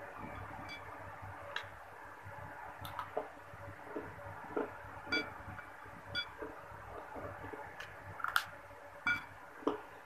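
Prawn crackers being picked from a glass bowl and crunched in the mouth: about a dozen scattered short crisp clicks and crunches, some with a brief bright ring.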